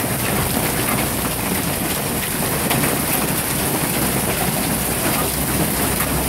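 Hail and rain falling steadily: a dense patter of many small hits.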